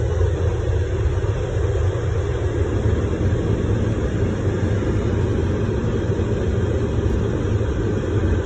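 Steady low rumble of a motor vehicle, engine and road noise with no change in pace.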